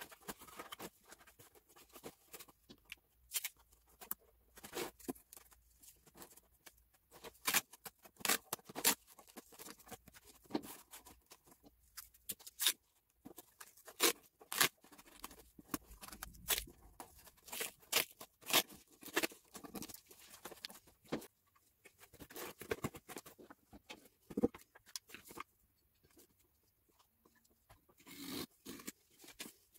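Cardboard box being handled and taped by hand: irregular sharp crackles, taps and rustles of cardboard, with a knife scoring a cardboard sheet near the end.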